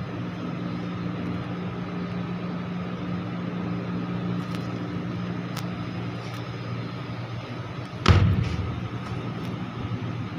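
Steady hum of running HVAC machinery, with one loud bang about eight seconds in.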